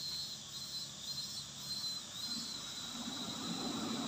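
Steady insect chirring, a high thin buzz that pulses on and off. In the second half the noise of a passing vehicle rises and grows louder under it.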